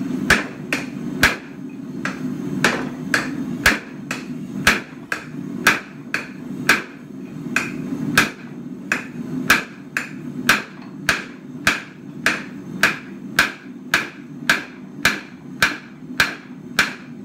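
Hand hammer striking a red-hot mild steel bar on an anvil in an even rhythm of about two blows a second, each blow a sharp metallic ring. A steady low rumble runs underneath.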